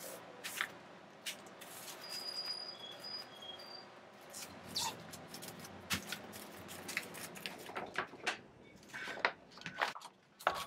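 Paper rustling and light taps of hands folding a white paper mailer and pressing it flat against a tabletop, in short irregular bursts of handling noise.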